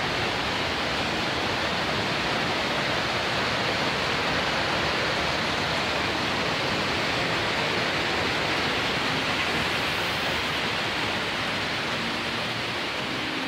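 Roar of the Iguazú Falls: a steady, even rush of heavy falling water, easing a little near the end.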